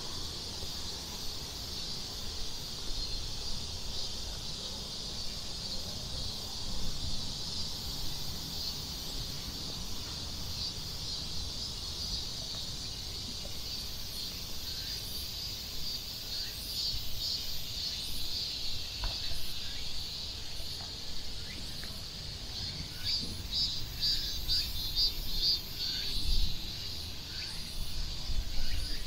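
A chorus of insects singing outdoors: a steady high-pitched drone that turns pulsing and a little louder in the second half, over a low rumble of outdoor background noise.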